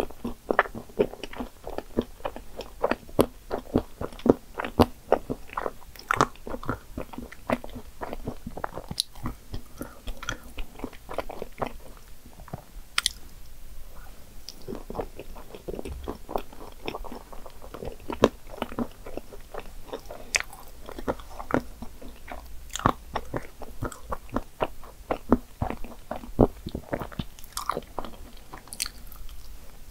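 Close-up chewing and biting of cream puffs topped with whipped cream, Nutella and chocolate chips: a steady run of short mouth clicks and smacks, with some light crunching.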